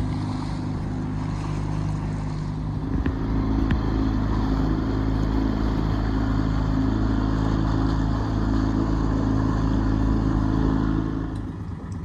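Yamaha 9.9 hp outboard motor running steadily at cruising speed, pushing a small dinghy, with wind and water noise over it. It cuts off near the end.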